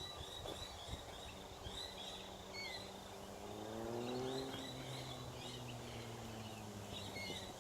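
Faint outdoor ambience with small birds chirping over and over. A low engine hum comes in about three seconds in, rising in pitch and then holding steady.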